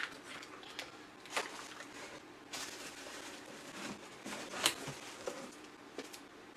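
Faint handling noise of unpacking: cardboard and packaging rustling and scraping, with a few light knocks, as a boxed iPad is lifted out of a cardboard shipping carton.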